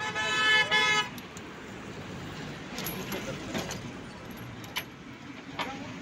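A vehicle horn toots once for about a second and is the loudest sound. Then come a few sharp metallic clinks of a steel tie-down chain and chain binder being handled, over a steady background noise.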